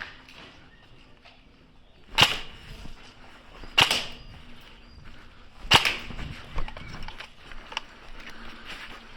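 Airsoft gun shots: three sharp single cracks about a second and a half to two seconds apart, then a couple of fainter taps.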